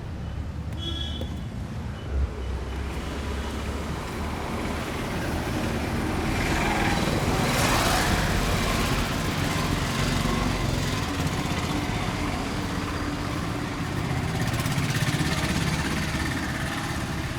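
Road traffic: vehicle engines running steadily, swelling for a few seconds in the middle as traffic passes close by. A brief knock comes about two seconds in.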